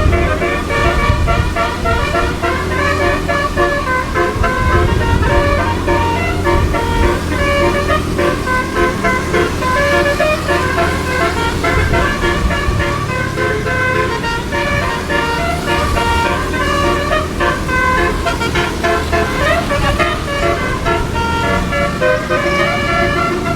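Bus telolet (basuri) multi-tone horn playing a melody of short, quickly changing notes, over the steady low hum of the bus engine running.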